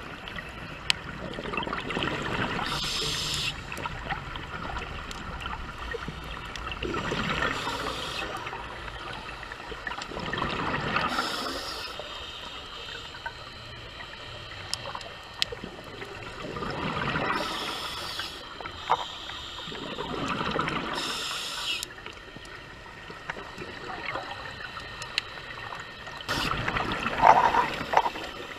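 A scuba diver's regulator breathing, heard underwater: slow breaths in and out, each exhale a gurgling burst of bubbles, repeating about every four to five seconds, with a few small clicks between.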